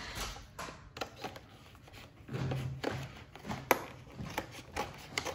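Scissors cutting through cardboard packaging: an irregular series of sharp snips and crunches, the loudest about two-thirds of the way through.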